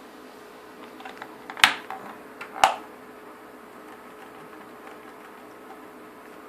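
Two sharp plastic clicks about a second apart, with a few lighter ticks before them: the fan switch of a Range Rover P38 HEVAC control unit being pressed onto its catches.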